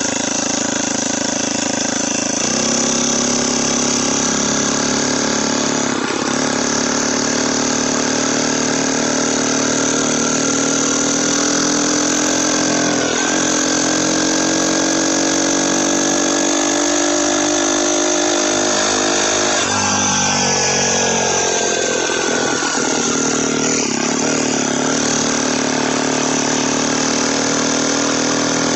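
Turbocharged engine of a motorized bicycle running under way, with the turbo's whistle. It climbs in pitch through long pulls and drops back sharply three times.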